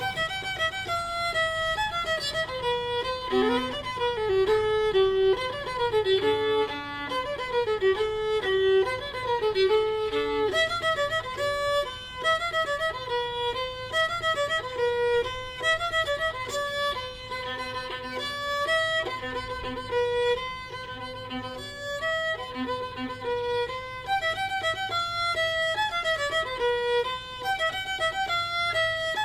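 Background fiddle music: a solo violin playing a lively melody of quick, separate notes.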